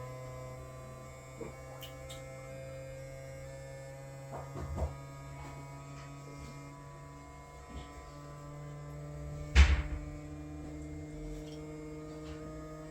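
Bambu P1S 3D printer running its startup calibration, humming steady tones that step to a new pitch partway through. A few light knocks come around the middle, and one louder thump about ten seconds in.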